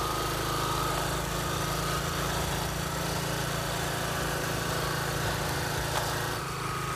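A motorcycle engine running steadily at low revs: a continuous drone over an even hiss of road and wind noise.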